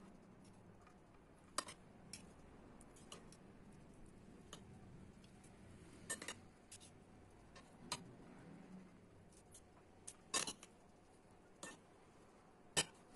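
Metal spoons clinking and tapping as a soft cheese-and-vegetable filling is scooped and spooned onto fried aubergine halves: scattered sharp clicks a second or two apart over a quiet background, the loudest near the end.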